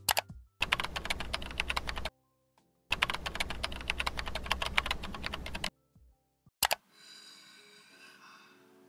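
Computer-keyboard typing sound effect: rapid keystrokes in two bursts, about a second and a half and then nearly three seconds long, with a single click after them. Soft music comes in near the end.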